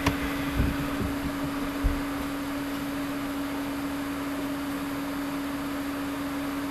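Steady electrical hum with a faint hiss, one even tone throughout. There is a single sharp click right at the start, like a mouse button, and a couple of faint soft knocks in the first two seconds.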